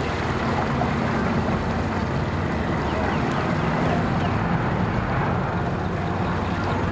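Bass boat outboard motor running steadily at low speed, a constant low drone.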